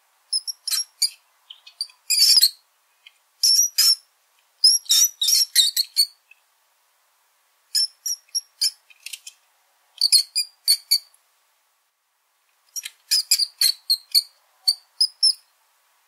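Small rodent squeaking: clusters of short, very high-pitched squeaks, a few in quick succession, with silent pauses of about a second between the clusters.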